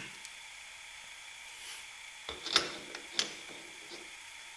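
A few sharp metal clicks and taps as a steel shaft coupler is set on and started onto the threaded shaft of an alternator, the loudest about two and a half seconds in, with low room hiss between.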